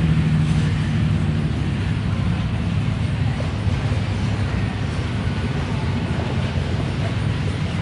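Steady low engine hum, even throughout, with a faint background haze.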